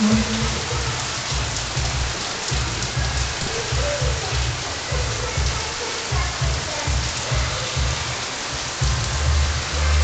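Heavy rain pouring down on trees and a corrugated metal roof in a steady, dense hiss, with irregular low rumbles underneath.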